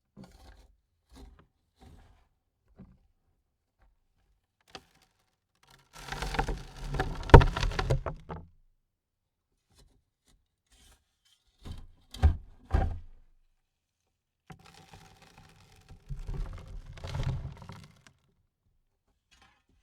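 Dirt and clods thrown onto a wooden coffin lid. A few small clumps knock on the wood at first. A large shovelful lands about six seconds in and patters for a couple of seconds, then three heavy clods thud around twelve seconds, and a longer, softer spill of dirt patters near the end.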